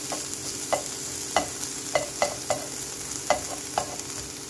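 Diced bell peppers and onions sizzling in oil in a skillet, with a slotted spatula scraping and knocking against the pan bottom about seven times at an uneven pace.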